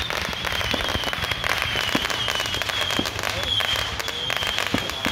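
Consumer firework cake firing comets with crackling stars: a dense, continuous crackle broken by a few louder pops.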